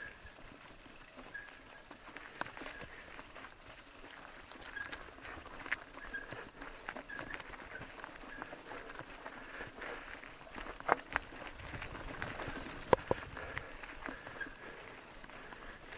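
Mountain bike rolling down a rough, stony singletrack: the bike rattling and clicking over the ground, with a couple of sharper knocks in the second half.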